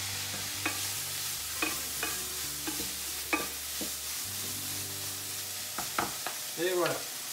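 Shredded duck confit with onion and shallot sizzling in duck fat in a frying pan, stirred with a utensil that knocks and scrapes against the pan several times.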